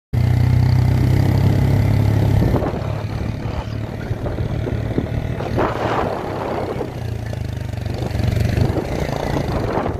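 A motor vehicle's engine running steadily while travelling, with road noise. The engine note is strongest at first, eases off after about two and a half seconds, and picks up again near the end.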